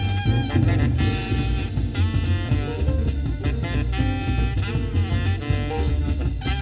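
Jazzy music with brass and drums playing through a custom car audio system (Technics tweeters, FaitalPRO midrange and 8-inch midbass speakers, Luxman amplifiers), heard inside the car's cabin.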